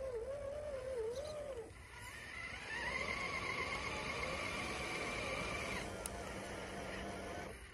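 Electric motor and drivetrain of an RC crawler truck whining as it pushes through deep snow. For the first second or so the pitch wavers up and down with the throttle. From about two seconds in it settles into a steadier, higher whine, which fades out near the end.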